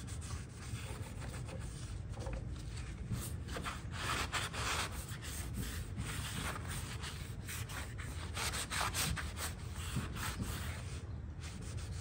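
Cloth rag rubbed back and forth over the wooden base of a dresser in repeated wiping strokes, working in a second coat of gel stain.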